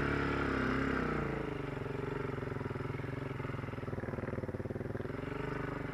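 Honda TRX ATV engine revving briefly, then running steadily at a low, even pitch.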